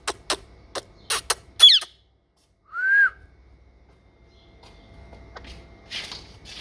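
Pet parrot making a quick run of sharp clicks, then two short whistled squeaks: one chirp dropping in pitch, and a second, rise-and-fall whistle about a second later.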